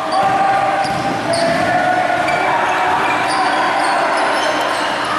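Sound of a basketball game in a gym: players' voices echoing through the hall, sneakers squeaking on the hardwood floor, and a basketball bouncing.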